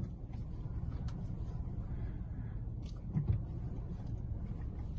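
Car engine idling with a steady low rumble while the front wheels are steered, with a few faint clicks. There is no creak from the air-suspension strut tops, which have been refitted with bearings.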